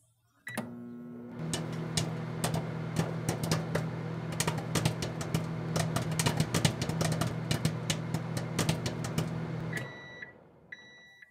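Microwave oven running with a steady low hum while popcorn kernels pop inside a silicone popper, several pops a second. The hum stops near the end, followed by two short beeps as the microwave finishes its cycle.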